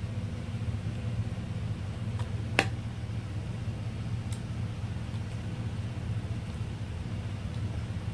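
Steady low mechanical hum, with a steel ladle clinking once about two and a half seconds in and once more faintly as curry is ladled into a bowl.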